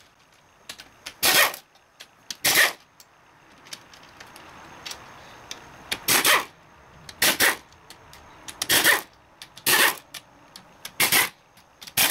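Pneumatic wrench running in short bursts, about eight in all, with quiet gaps between, as it spins out the hex bolts holding an automatic transmission's valve body.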